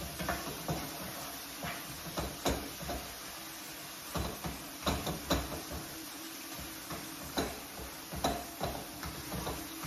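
Black spatula knocking and scraping in a red non-stick frying pan as minced meat is stirred: irregular clicks, the loudest around the middle, over a steady hiss and a low hum.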